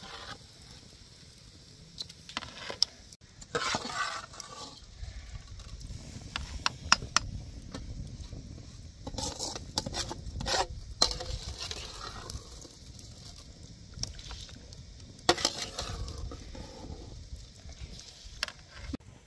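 A metal spoon stirring and scraping rice in an aluminium bowl, with sharp clinks of metal on metal and a few short scraping bursts.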